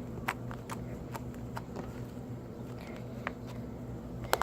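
Green glitter slime being worked in the hands, giving scattered sharp little clicks and pops, about half a dozen, over a steady low hum.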